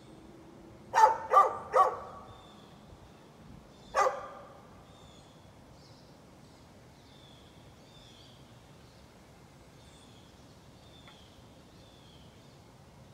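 A dog barking: a quick run of three barks about a second in, then one more bark around four seconds.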